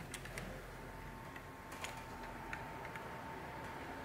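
Hands working a Blue Gizmo BG32 infrared thermometer's plastic case: faint, irregular small clicks and taps of fingers and nails on the housing. A faint steady tone sounds behind them.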